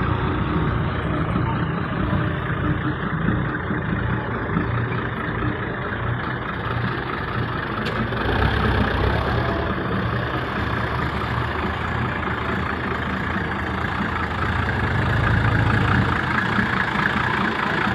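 An old truck's engine idling steadily.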